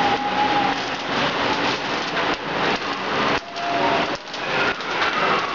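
Many pennies rolling together around the funnel of a coin vortex spinner, making a dense, continuous rattling clatter like rain. A few brief faint ringing tones rise above it.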